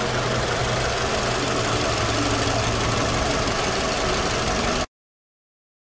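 Toyota Camry four-cylinder engine idling steadily, heard from under the open hood. The sound cuts off abruptly about five seconds in.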